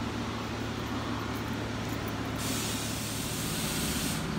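Steady city traffic noise with a low, constant hum underneath.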